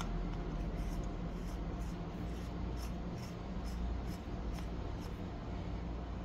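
Fingers rubbing and scratching over a Shure SM58 microphone's steel mesh grille as it is handled, a run of short light scrapes about two to three a second over a steady low background rumble.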